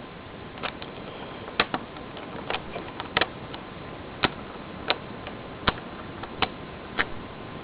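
About ten sharp, irregular clicks and taps from the small parts of a Bryant 4901 toggle light switch being fitted back together by hand, as the rocker and toggle are worked into place.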